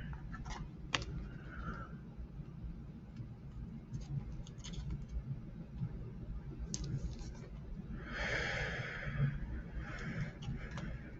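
Trading cards being handled: scattered light clicks and taps, with a longer rustle about two-thirds of the way through.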